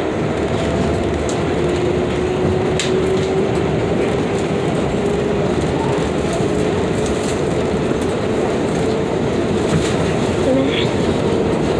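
A New York City Subway 7 train running, heard from inside the car: a steady rumble of wheels on rail with a few sharp clicks, and a motor whine that rises slowly in pitch as the train gathers speed after leaving the station.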